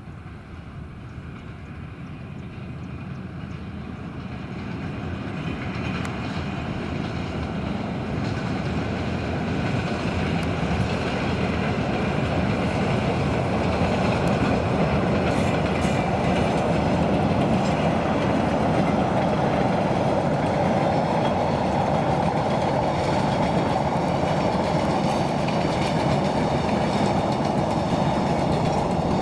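A passenger train running on the line, growing steadily louder over the first ten seconds or so as it approaches, then staying loud and steady as it passes close by.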